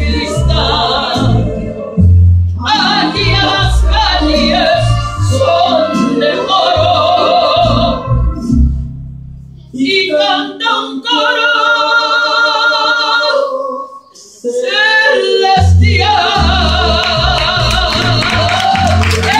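Woman singing a worship song solo into a microphone, with wavering vibrato on long held notes. A low accompaniment runs under her voice, drops out for a few seconds halfway through while she holds a note alone, then comes back.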